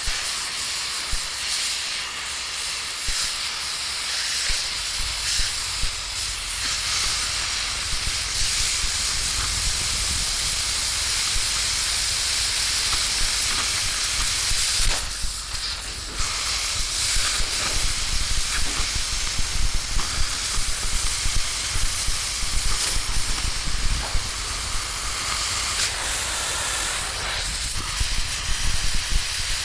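Steady hissing noise, briefly interrupted about fifteen seconds in and again near the end.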